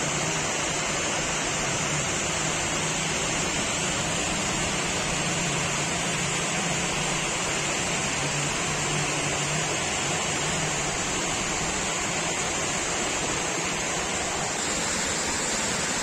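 Heavy monsoon rain pouring down in a steady, even hiss.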